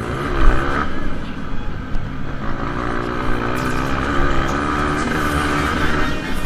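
Dirt bike's single-cylinder four-stroke engine revving up and down as it races around a motocross track, heard from on the bike. A loud thump comes about half a second in.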